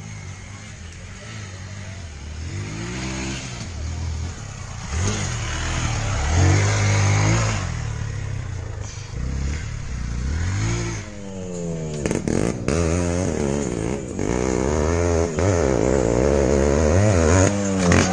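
Motorcycle engine on an off-road track, revving up and falling back again and again as the throttle is worked, growing louder toward the end as the bike comes closer.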